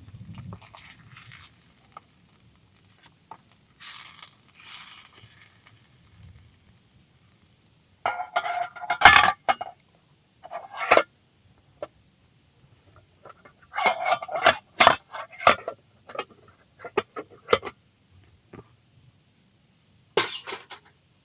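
Metal cookware being handled, clinking and scraping in several separate bursts with quiet gaps between, the loudest clanks in the middle.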